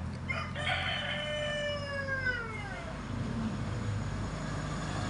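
A rooster crowing once: one long call lasting about two and a half seconds that falls in pitch at its end, over a steady low hum.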